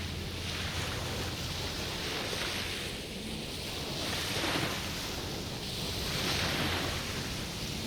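Small sea waves washing ashore: surges of hiss swell and fade every couple of seconds, the strongest about halfway through, over a steady low rumble of wind.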